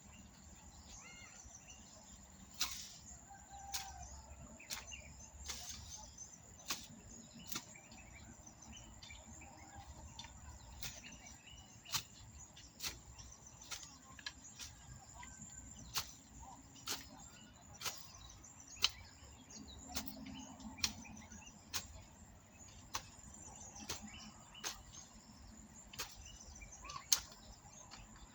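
Sharp knocks repeating about once a second, with birds chirping faintly in the background.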